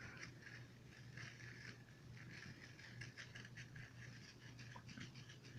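Near silence with faint, quick scratching and rustling ticks from a kitten scuffling and kicking at a toy, over a steady low hum.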